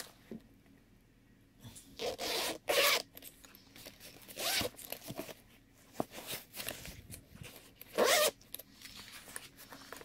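Zipper of a zippered GoPro travel case worked in several short rasps, with lighter rubbing of the case's fabric as it is handled between them.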